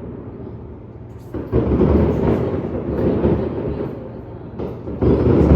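Aerial fireworks bursting: deep booms that roll on like thunder, a fresh one about a second and a half in and another near the end, with faint crackling between.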